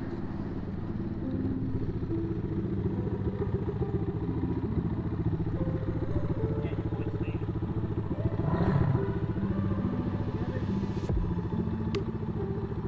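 MZK 250 dirt bike's 250 cc single-cylinder engine running at idle, with a brief rise in revs about eight and a half seconds in.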